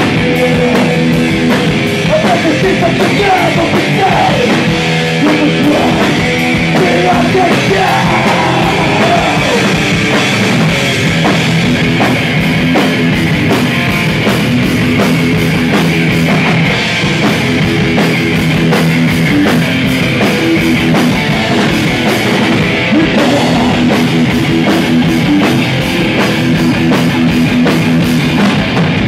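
A live thrash/hardcore band playing loud and fast: pounding drums, distorted electric guitars and bass, with a singer shouting vocals through the microphone over the first ten seconds or so.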